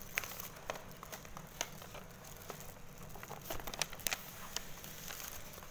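Brown paper food wrapping being unfolded and rustled open around a bundle of satay skewers, with scattered crinkles and light clicks.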